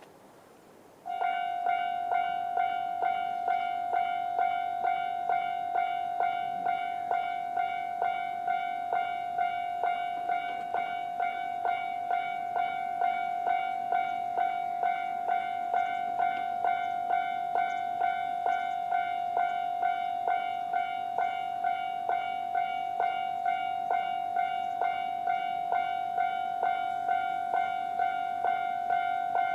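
Japanese railway level-crossing alarm starting up about a second in, with its standard warning sound: a ringing electronic bell tone struck over and over in a steady, even rhythm.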